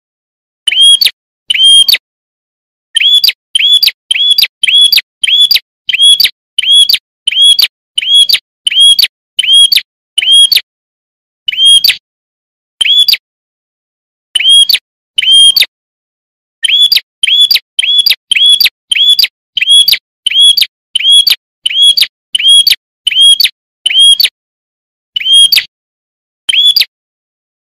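Prenjak (prinia) calling: short, sharp, high chirps repeated about twice a second in runs, with a few pauses of a second or two between runs. The gaps between notes are dead silent, as in an edited training recording.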